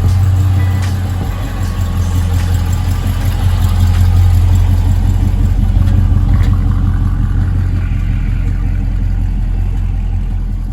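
Dodge Charger Scat Pack's 6.4-litre HEMI V8 running with a loud, steady low rumble, swelling a little midway.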